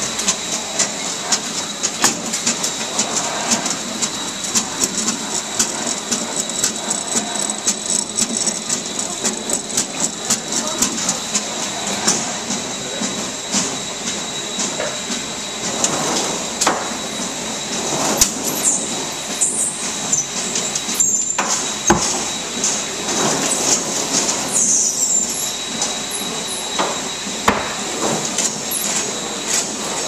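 Winery grape-reception machinery (conveyor and destemmer) running with a steady high whine and continual rattling clicks. In the second half, louder scraping bursts come as grapes are forked from a bin into the hopper.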